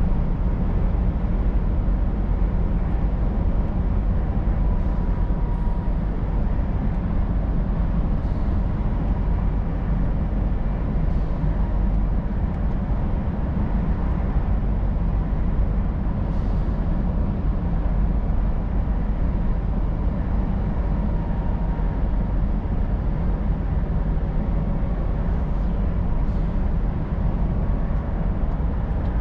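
Scania R500 truck driving at a steady speed: an even, low engine drone mixed with tyre and road noise, unchanging throughout.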